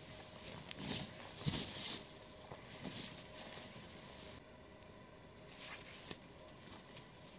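Canvas plash palatka rustling and flapping as it is shaken out and laid down, with steps shuffling through dry, frosty leaf litter in short irregular bursts.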